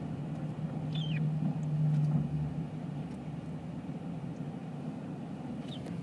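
Car engine and road noise heard from inside a moving car: a steady low drone that swells about two seconds in, with a short high chirp about a second in.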